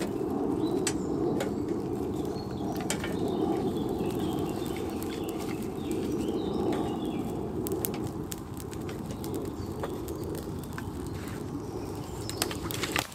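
Twig kindling fire in a metal fire pit crackling, with scattered sharp snaps, over a steady low rumble of wind buffeting the microphone.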